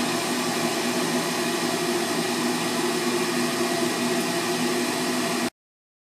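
High-efficiency furnace draft inducer motor running with a steady whir and hum. It cuts off abruptly near the end.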